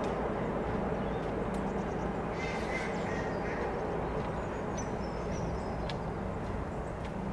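Steady low rumble of a train running on the line, with birds calling over it: short calls about two and a half seconds in and thin high whistles around five seconds.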